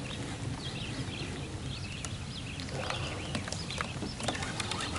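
Raindrops tapping on an uncovered action camera: irregular light taps over a steady hiss, with a few faint high chirps.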